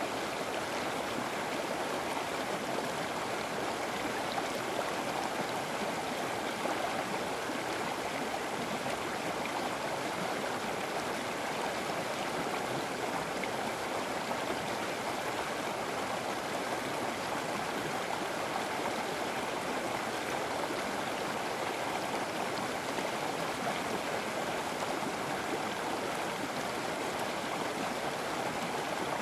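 River water flowing over rocks, a steady rushing and gurgling that does not change.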